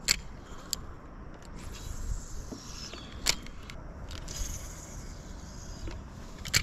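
Fishing rod and reel being handled aboard a plastic kayak: a few sharp clicks and knocks, about four in all, over a faint hiss and low rumble.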